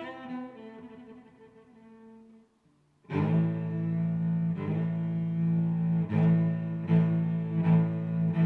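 Background music of low bowed strings. One piece fades out, and after a brief gap another starts about three seconds in, with long low notes re-struck about once a second.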